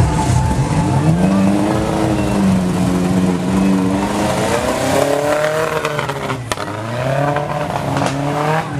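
Off-road racing jeep's engine revving hard, its pitch climbing and holding, then falling off about six and a half seconds in before climbing again near the end.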